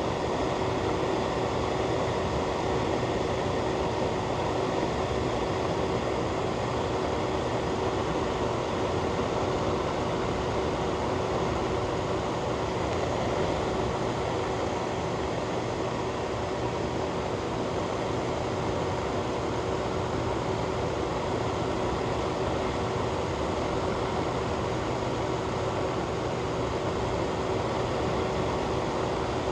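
Fan running steadily: an even rush of air with a faint constant hum.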